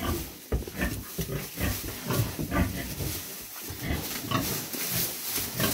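Heavily pregnant sow grunting in short, repeated grunts, two or three a second, as she moves restlessly about her pen. This is the agitated nesting behaviour of a sow about to farrow.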